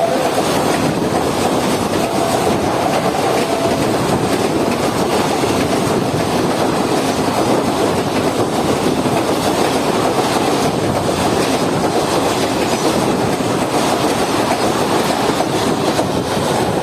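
Express passenger train running past at speed: a steady rush of coach wheels on the rails with clatter over the rail joints.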